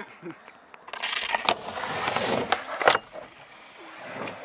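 Skateboard wheels rolling over asphalt, growing louder as the board comes close, with a few sharp clacks of the board, the loudest just before three seconds in.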